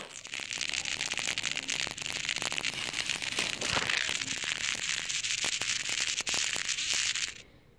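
Crackling, rustling handling noise right against the recording phone's microphone, as when the phone is covered or rubbed against something. It starts with a thump and stops abruptly near the end.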